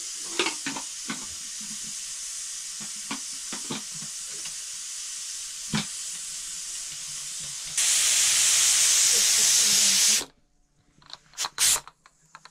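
Aluminium pressure cooker on a wood fire hissing steadily as steam escapes from its vent; about eight seconds in the hiss gets much louder for some two seconds, then cuts off suddenly, followed by a few metal clanks as the cooker is handled.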